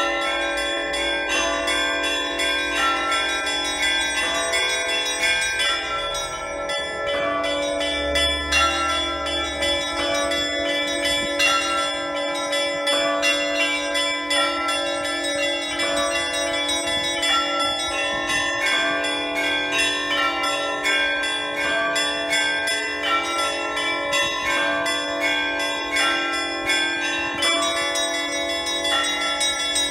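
Russian Orthodox church bells played by a single bell ringer in festal Easter ringing. Quick, busy strikes on the smaller bells ring over a steady deeper bell, and the tones overlap and hang on.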